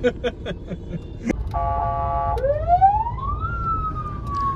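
Electronic car hooter siren sounding through a car-mounted speaker: a short steady horn blast about one and a half seconds in, then a police-style wail that rises for about a second and slowly falls, over the car's engine running.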